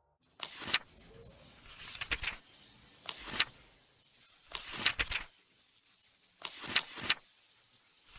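Electric zap sound effect: about five short, crackling bursts of sparking, spaced a second and a half to two seconds apart.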